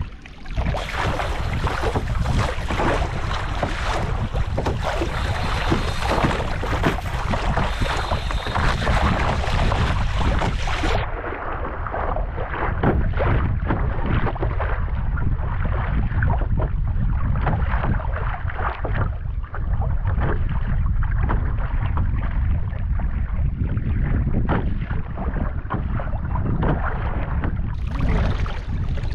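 Wind buffeting the microphone over steady sea and water noise around a kayak at sea, with no clear separate event. The sound turns duller about eleven seconds in and brighter again near the end.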